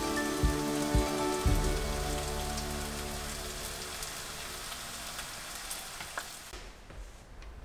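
Hot oil crackling and sizzling in a frying pan on the gas stove, fading out near the end. Soft music with a light beat plays over the first second or two.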